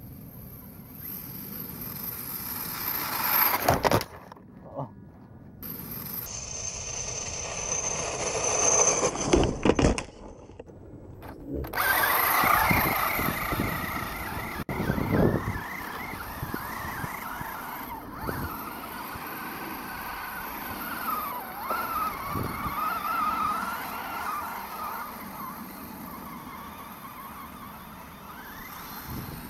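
Axial Wraith RC buggy's brushless electric motor whining as it drives through snow, the pitch rising and falling with the throttle. There are louder bursts of revving in the first half, and the sound cuts off abruptly twice.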